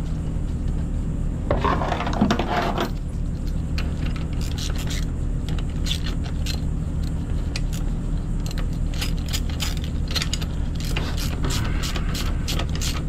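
Socket ratchet clicking in quick, irregular runs as it turns the axle bolt of a power wheelchair's caster wheel, with light metal clinks of the wrenches.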